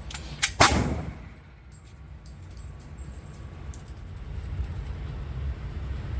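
Two pistol shots from a Glock 23 .40-calibre handgun, close together about half a second in, the second the louder, echoing in the indoor range.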